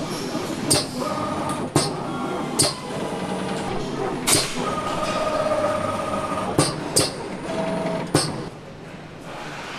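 Automated assembly machinery working on an aluminium engine casing: about seven sharp mechanical clicks and clacks at irregular intervals over a running hum, with short steady whines rising and stopping between them. The noise drops away near the end.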